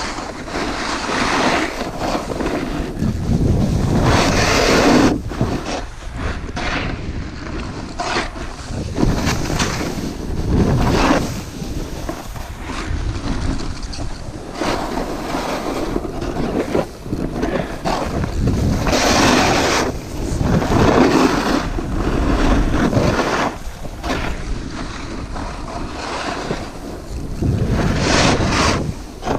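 A snowboard riding down a slope: the board's edges scraping and hissing through the snow in a series of turns, each turn a surge of noise lasting a second or two, with wind buffeting the microphone.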